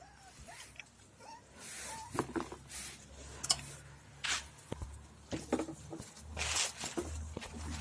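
A dog eating: irregular chewing and crunching clicks mixed with short, breathy snuffling bursts.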